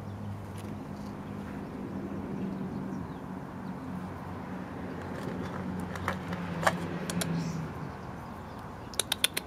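Steady low engine hum of a vehicle, fading after about seven seconds, with a few light clicks in the middle. Near the end, four quick sharp taps as a walnut piece is set down on the ridged concrete.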